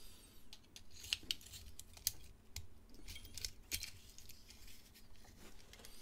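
Light, irregular metal clicks and scrapes as a flat steel key is handled and slid into the keyway of an opened lever padlock.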